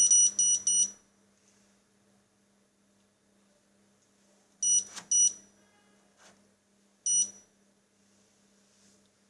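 Regal 9 kg washing machine's control panel beeping as its program knob is turned through the settings. A quick run of about four short, high beeps comes at the start, two more with a click around five seconds in, and a single beep near seven seconds. A faint steady hum lies underneath.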